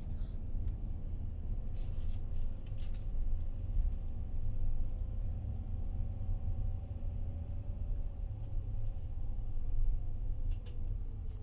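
Cabin noise of a van driving slowly: a steady low road rumble under a faint engine hum that drops in pitch near the end as the van slows, with a few faint clicks about two to three seconds in.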